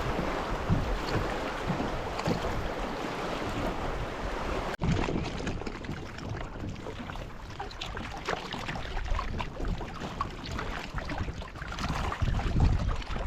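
River water rushing and splashing around a kayak, with wind buffeting the microphone. About five seconds in, the sound changes abruptly from a steady dense rush to quieter lapping with small splashes and ticks.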